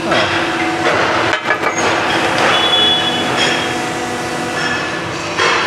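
Steady loud machinery noise in an aluminium casting foundry, with a knock about a second and a half in and a short high squeal about halfway through.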